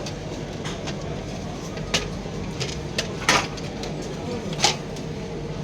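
Several sharp clicks and clacks of an HP LaserJet printer's plastic casing and parts being handled, one a short clatter, over a steady low hum.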